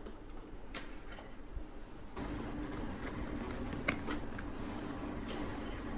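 Retail packaging of a small flash drive being handled, with scattered light clicks and rustles. A steady low hum comes in about two seconds in.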